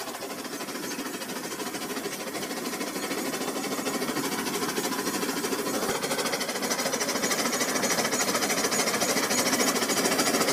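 Rail King toy train running on its plastic track: a small electric motor whirring with a fast, fine clatter of wheels and gears. It grows steadily louder as the train approaches.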